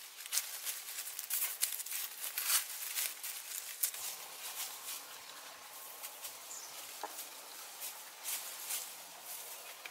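Irregular rustling and clicking from handling plant material, densest in the first three seconds and sparser after, over a faint steady hum.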